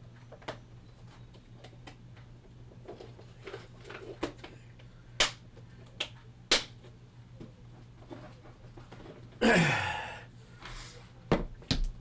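Scattered light clicks and taps of firework initiators being handled and sorted, over a steady low hum. About nine and a half seconds in comes one louder, brief scraping rush that drops in pitch, followed by two more sharp clicks.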